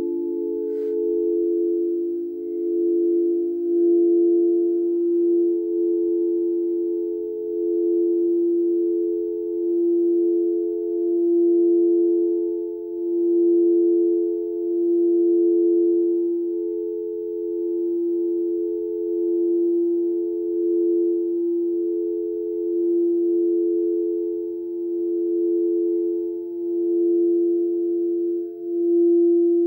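Frosted crystal singing bowls ringing together in a long, steady chord of several pure tones, kept sounding by a mallet drawn around a bowl's rim, so the sound swells and fades in slow, even waves. A faint tap about a second in.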